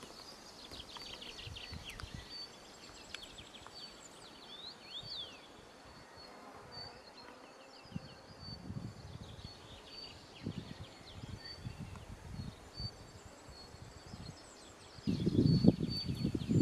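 Natural outdoor ambience: thin, high chirps repeated about once a second, with a few quick falling trills early on, over a faint hiss. Low rumbling bursts come in about halfway and grow much louder near the end.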